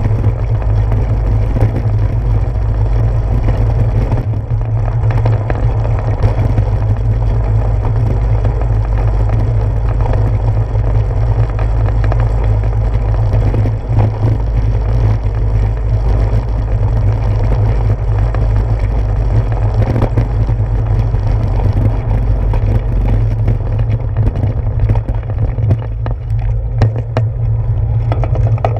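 Steady low rumble and buffeting from a bicycle riding over a brick-paved street, picked up by a handlebar-mounted GoPro: tyre and road vibration through the handlebars, with wind on the microphone. A few brief knocks stand out.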